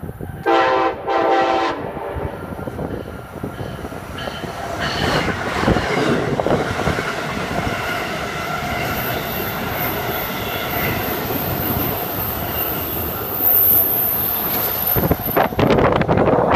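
Amtrak ACS-64 electric locomotive sounding two short blasts on its K5LA five-chime horn, then the train rolling past with a steady rush of wheels on rail. A thin high whine comes in from about nine seconds in to near fourteen, and loud gusts of passing air hit near the end.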